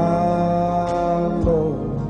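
Male gospel singer holding the word "follow" as one long sung note over band accompaniment, the note sliding down about a second and a half in. Two short percussive hits fall under the note.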